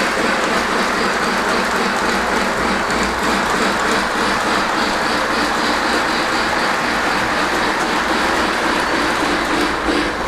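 O-gauge model train running on the layout's track: a steady running rumble with a light, continuous clatter of wheels on the rails.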